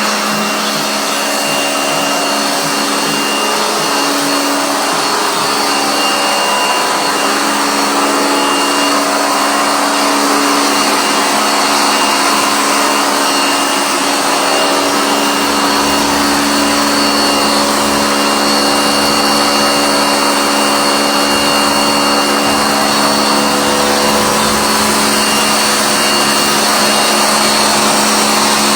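A small electric motor appliance running steadily, a whirring noise with a constant hum that does not change in pitch.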